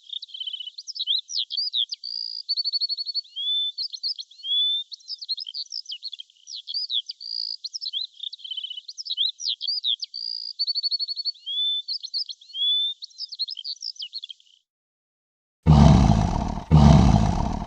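A songbird chirping and trilling continuously in quick, varied phrases that repeat. Near the end, after a short silence, come two loud tiger roars of about a second each.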